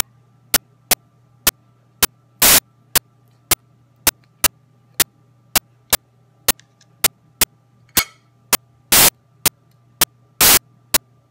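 Sharp, loud digital clicks about twice a second, with three longer bursts of noise, over a steady electrical hum: a recording glitch.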